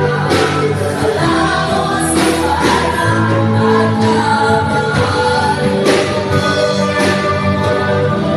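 A group of women singing a gospel song together, amplified through a microphone, over instrumental accompaniment with held low bass notes and occasional percussive hits.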